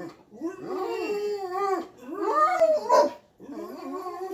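Cane Corso "talking": three drawn-out, howl-like vocal moans that bend up and down in pitch, with short breaks between them.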